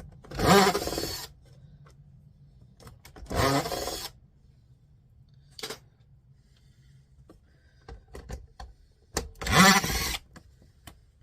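Cordless drill-driver run in three short bursts, each spinning up with a rising whine, backing screws out of the turntable. Faint clicks of handling between the bursts.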